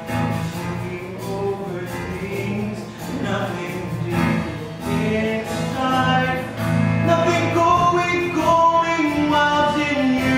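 A male voice singing a slow melody over strummed acoustic guitar accompaniment, with long held notes in the second half.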